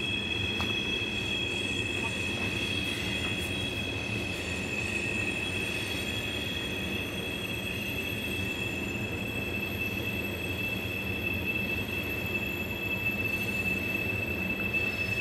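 A train passing: a steady rumble with a high, steady wheel squeal at two pitches.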